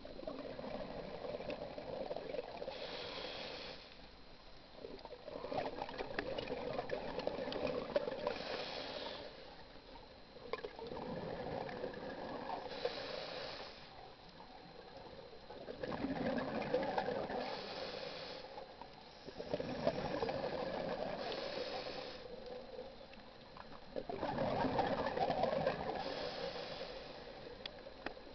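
A scuba diver's regulator breathing underwater, in repeating cycles about every four to five seconds: a short hiss of the inhale, then the gurgling rush of exhaled bubbles.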